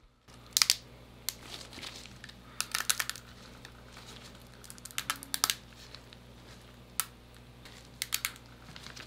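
Sharp clicks and crackles in short clusters as a flexible steel build plate is bent and a cured resin print pops loose from it, over a low steady hum.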